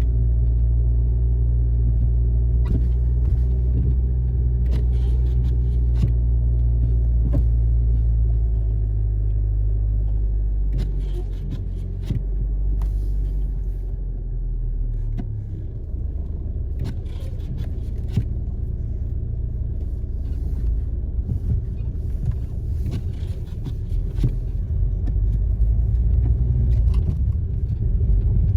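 Car driving, heard from inside the cabin: a steady low rumble of engine and road, with scattered clicks and knocks. About eleven to fifteen seconds in, the rumble dips and turns rougher and less even.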